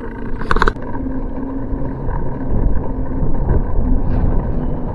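Wind buffeting the microphone of a camera on a moving bicycle, a steady low rumble mixed with road and tyre noise, with a short sharp clatter about half a second in.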